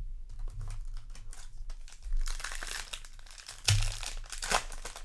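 Crinkling and tearing of a foil Magic: The Gathering set booster wrapper being handled and torn open. There is a busier stretch around the middle and two sharp, loud crackles near the end.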